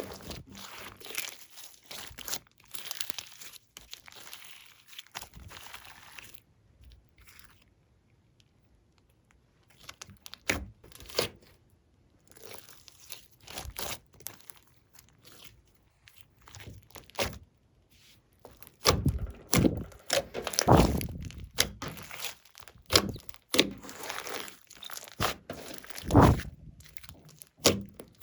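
Glossy slime being pressed, folded and stretched by hand, giving irregular sticky crackles and pops. There is a near-quiet pause a few seconds in, and the crackles get denser and louder in the last third.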